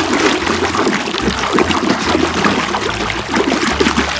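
Fingers scrubbing a toy in thick muddy water: continuous wet squelching, sloshing and trickling.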